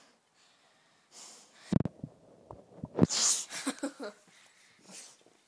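Two dull knocks of the phone being handled, then, about three seconds in, a short wheezy blast of breath from a dog's nose right against the microphone, followed by a few small nasal sounds.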